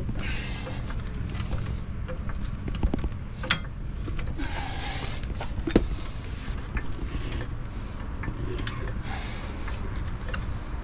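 Scattered metal clinks and knocks of hand tools and wheel parts as a car tire is being changed, over a steady low rumble.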